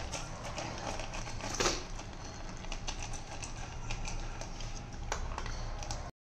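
A small dog eating dry kibble from a stainless steel bowl: rapid crunching and clicking of kibble and teeth against the metal, with one louder clink about one and a half seconds in. The sound cuts off suddenly just before the end.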